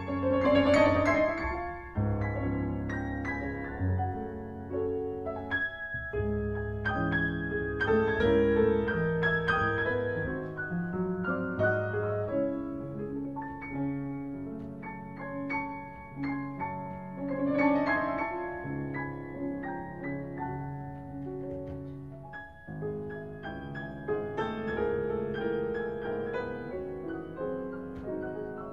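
Two grand pianos playing classical music together as a duo, with heavy sustained bass chords in the first half giving way to lighter, higher passages.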